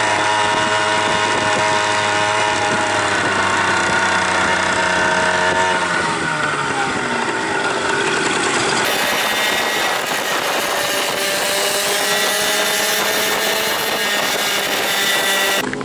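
Moped engine running under way, a steady buzz whose pitch drops about six seconds in. The sound changes suddenly near nine seconds in and the buzzing carries on.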